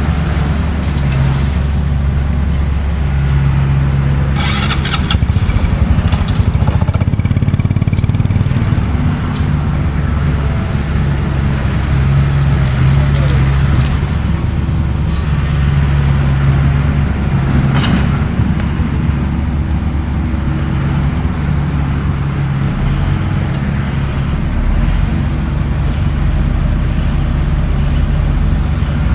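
Bulldozer's diesel engine running steadily under load, with a few sharp metallic knocks and clanks, the loudest about five seconds in.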